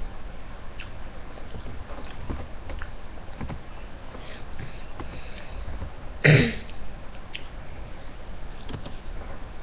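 A boy chewing a piece of breaded chicken close to the microphone, with soft, scattered mouth clicks. One short, loud cough about six seconds in.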